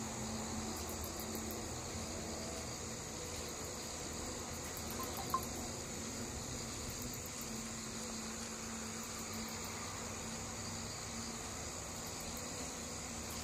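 Night insects chirping in short, rapid trills that repeat every second or two over a steady high-pitched drone, with a faint low hum beneath. A single sharp click sounds about five seconds in.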